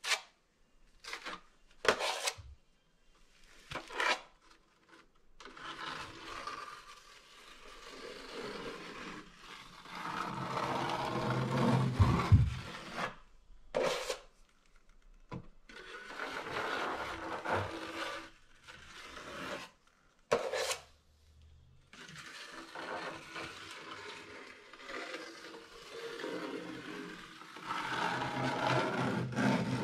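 Steel drywall taping knife spreading joint compound over drywall in long scraping strokes, broken by short sharp clicks as the knife is scraped against the rim of a plastic mud pan to load and clean it.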